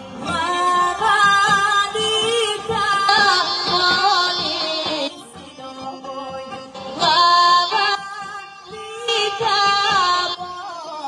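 A woman singing a Rhodope folk song in ornamented, wavering phrases, accompanied by an ensemble of kaba gaida bagpipes with their steady drone and a tapan drum keeping a regular beat. There is a quieter stretch of about two seconds midway before the singing resumes.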